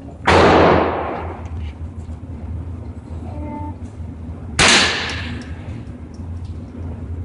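Two rifle shots about four seconds apart, each a sharp crack with an echo trailing off over about a second.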